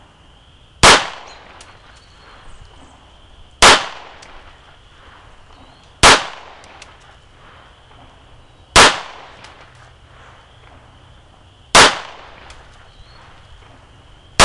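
A 7.65 mm Izarra semi-automatic pistol, a Spanish Ruby-type sidearm of about 1915, fired in slow aimed shots: five sharp reports roughly every two and a half to three seconds, each with a short echoing tail, and a sixth right at the end. The pistol cycles shot after shot on new ammunition without jamming.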